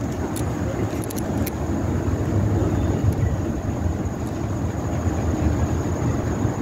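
Low, fluttering outdoor rumble with no clear engine or voice in it, and a few faint clicks in the first second and a half.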